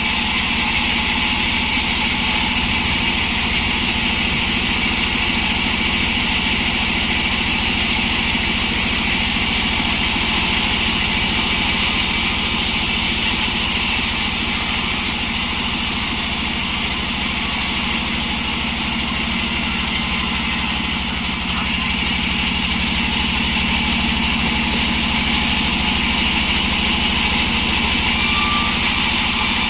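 Engine-driven sawmill running steadily, an even engine drone under a loud high hiss.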